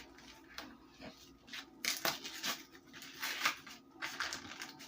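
Baked cornstarch being bitten and chewed: a run of irregular, crisp crunches, louder at about two seconds in and again past the middle.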